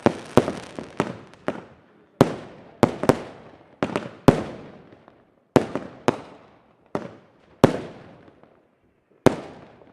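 Hurricane and El Niño fireworks cakes firing shot after shot: about fifteen sharp bangs at uneven intervals, each trailing off in an echoing rumble. The gaps between bangs grow longer near the end.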